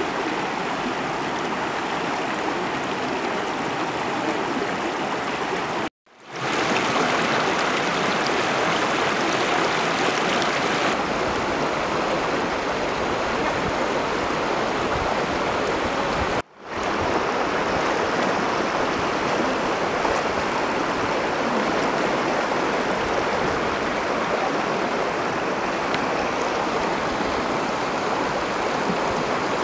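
Steady rush of river water flowing around waders and an elephant. The sound cuts out briefly twice, about six and sixteen seconds in, and fades back up each time.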